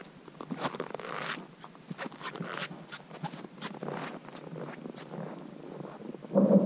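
Frozen lake ice cracking: a run of sharp snaps and ticks, then near the end a louder crack that rings on in a steady low tone.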